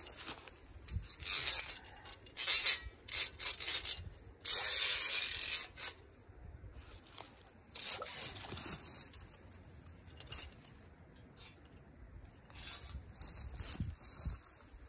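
Dry leaves, twigs and brush crunching and rustling underfoot and under hand, with scraping and rubbing as a trap set is handled at the water's edge. The longest and loudest rustle comes about four and a half seconds in.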